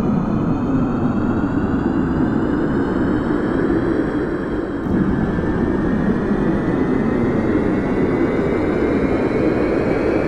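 Aeroplane taking off: loud, steady engine noise with several high whining tones slowly rising in pitch.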